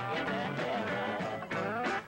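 Live band music with an acoustic guitar playing.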